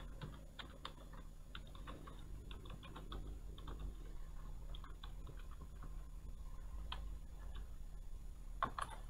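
Computer keyboard being typed on: a quick run of key clicks that thins out about halfway through, with two louder key strokes near the end.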